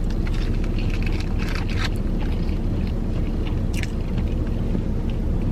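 Close-up eating sounds: chewing and crunching with small scrapes and rustles of food packaging, over a steady low hum inside the car.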